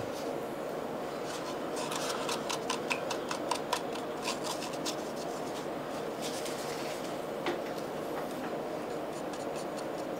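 A paintbrush being swished and tapped inside a styrofoam cup of dye reducer to clean it: light, irregular clicks and rubbing over a faint steady hum.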